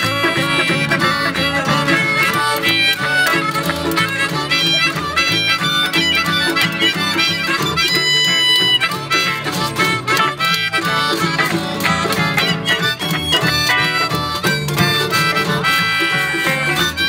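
Live string band playing an instrumental break in a blues shuffle: a harmonica leads over strummed acoustic guitar, electric guitar, a washboard rhythm and a plucked upright bass.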